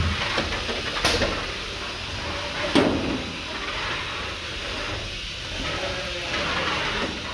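Antweight combat robots driving and scraping across the arena floor, with a sharp hit about a second in and a louder knock near three seconds, over a steady noisy hiss.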